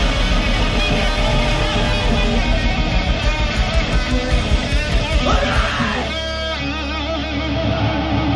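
Live heavy metal band playing through a PA: distorted electric guitars, bass and drums. About five seconds in there is a rising sweep. After that the drums thin out and a repeating guitar riff carries on.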